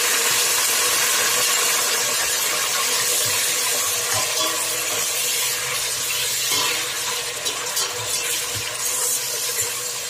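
Chopped tomatoes sizzling loudly in hot oil in a stainless steel pot, easing a little over the second half. A metal ladle stirs them, with small scrapes and knocks against the pot.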